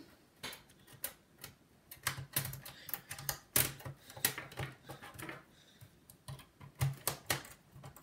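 Plastic access cover on the underside of a Dell Inspiron 640m laptop being pushed and pressed by hand: a run of irregular plastic clicks and taps as it is worked into place. The cover doesn't fit well and won't snap in cleanly.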